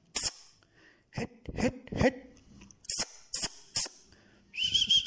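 A string of short, sharp hissing clicks, then about four and a half seconds in a steady high whistle held for about a second and a half.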